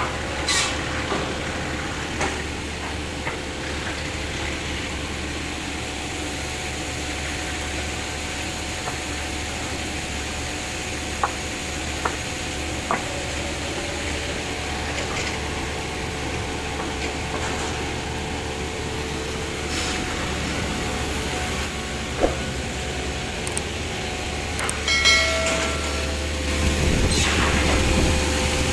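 Sawmill machinery running with a steady low hum and scattered knocks and clatter of wood being handled. A brief squeal comes about 25 seconds in, and a louder rush of noise follows near the end.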